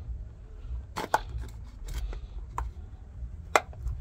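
Washing machine drain parts being handled: a few sharp clicks and knocks, the loudest about a second in and near the end, over a low background rumble.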